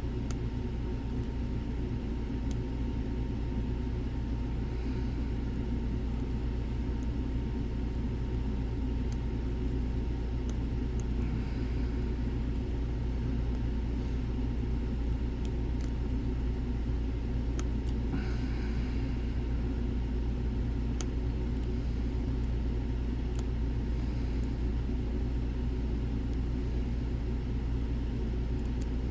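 A steady low rumble throughout, with faint, scattered small metallic ticks from a lock pick working the pins of a Lockwood Twin padlock.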